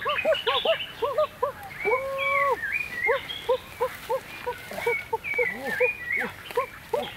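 A chorus of animal calls: many short, arched calls repeating several times a second, with one longer drawn-out call about two seconds in, and higher bird chirps over the top.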